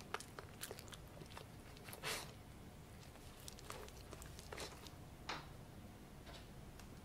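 Pomsky puppy licking and smacking its lips and chewing: scattered small wet clicks and a few louder smacks, thinning out near the end.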